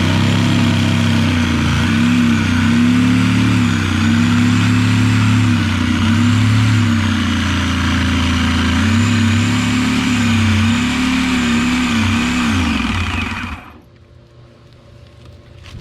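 Power saw cutting through a fiberglass boat floor, its motor pitch dipping and recovering as the blade loads up, then winding down and stopping about 13 seconds in.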